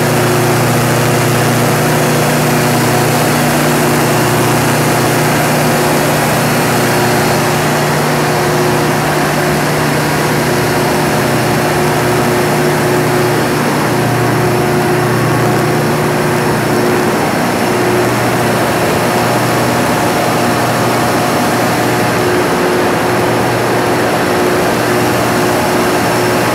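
Caterpillar 3516 V16 diesel engine of a 2000 kW standby generator set running steadily at no load, a loud even drone with no change in speed.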